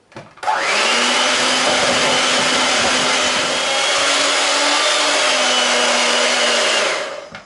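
Electric hand mixer running steadily at constant speed, its beaters mixing flour into chocolate cake batter. It switches on about half a second in and cuts off near the end.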